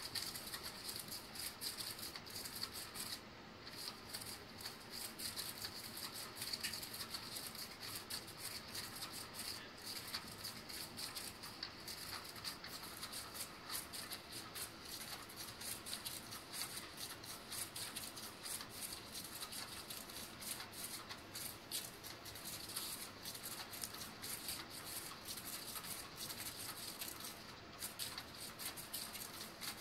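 Battery-powered moving-wand cat toy running under its fabric cover: a continuous light rattling and scratching, a dense stream of small quick clicks.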